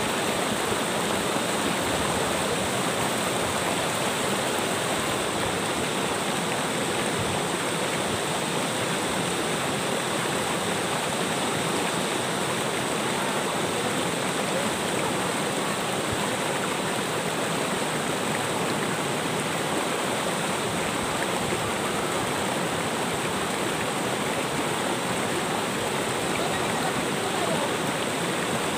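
Shallow rocky river rushing over boulders in small rapids: a steady, even rush of water.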